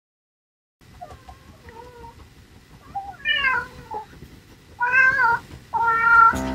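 A domestic cat meowing: a faint call about a second in, then three louder meows, each bending up and down in pitch, the last near the end.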